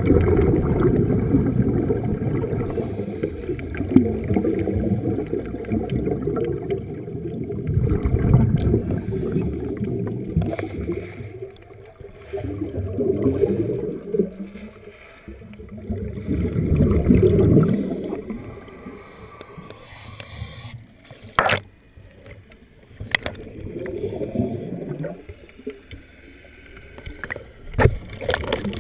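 Muffled water sloshing and bubbling heard through an underwater camera housing just below the surface, rising and falling in swells. A sharp knock comes about two-thirds of the way through and another near the end.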